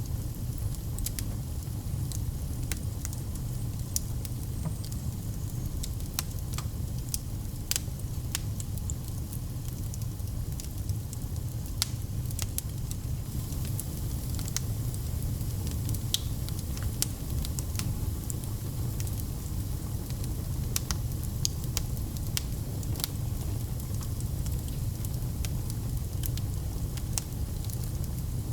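Wood fire in a fireplace crackling, with frequent sharp pops scattered irregularly over a steady low rumble.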